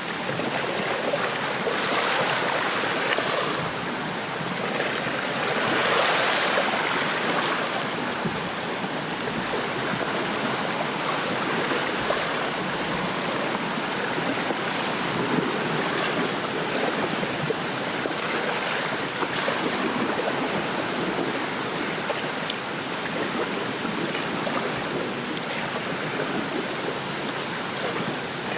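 Wind rustling through a lakeside reed bed, with soft waves lapping at the shore. Two gusts swell the rustle about two and six seconds in.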